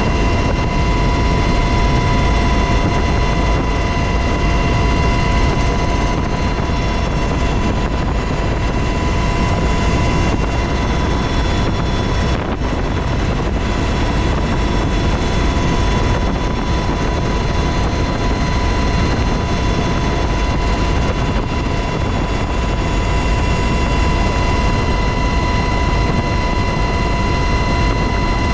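UH-60 Black Hawk helicopter in flight, heard from inside the cabin: loud, steady rotor and turbine noise with a constant high whine.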